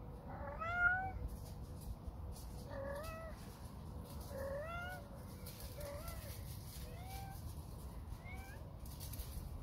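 Mother cat giving about seven short meows, each rising in pitch, a second or so apart, calling her kittens to her; the first, about a second in, is the loudest.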